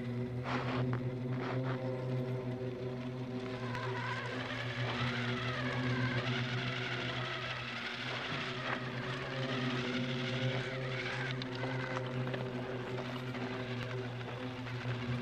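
Motor of a 3D-printed 1/6-scale RC snowmobile running as it drives over snow, a steady hum with a higher whine that wavers in pitch through the middle.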